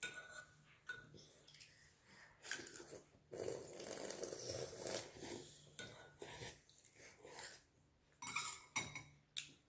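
Eating sounds at a meal: a few sharp clinks of utensils against dishes, and a louder stretch of noisy eating about two seconds long near the middle.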